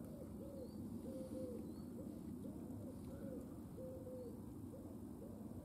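A pigeon cooing in a repeated rhythmic phrase: several short low coos, then a longer drawn-out coo every few seconds. Underneath is a steady low background hiss, with a few faint high chirps from another small bird.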